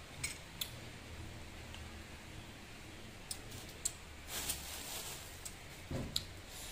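A person chewing with her mouth closed: a few sharp wet clicks and smacks, a short hiss about four seconds in, and a dull low thump near the end, over a faint low hum.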